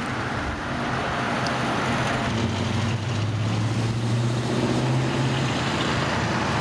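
Street traffic with a car engine running close by: a steady low engine drone over road noise, swelling in the middle and easing off about five and a half seconds in.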